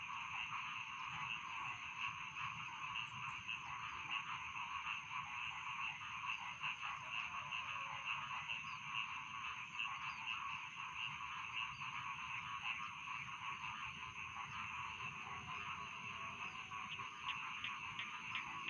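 A dense chorus of many rice-field frogs croaking at once, continuous and overlapping. A steady high thin tone runs underneath.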